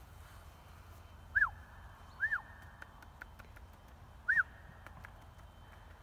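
A person whistling three short recall whistles, each rising briefly then dropping away, about a second or two apart: a falconer whistling a golden eagle back to the glove.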